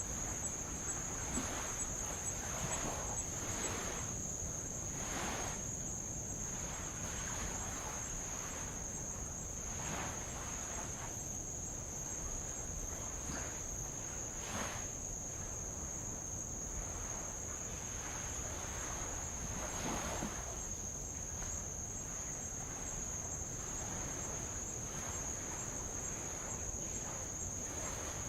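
A steady, high-pitched insect chorus, with light waves washing softly against old lava rock every few seconds at irregular intervals.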